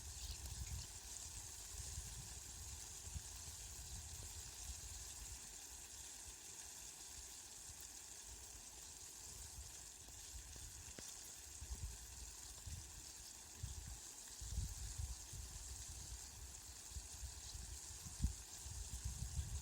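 Steady rain falling, an even hiss, with irregular low rumbles coming and going, heaviest in the second half.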